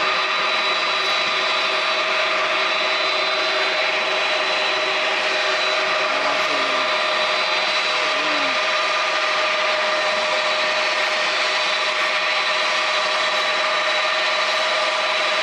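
Lockheed C-5 Galaxy's four turbofan engines running steadily: an even jet rush with a high whine held on top.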